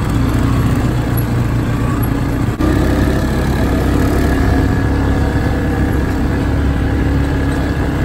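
Quad bike (ATV) engine running steadily while riding along a dirt trail, with a brief dip in loudness about two and a half seconds in.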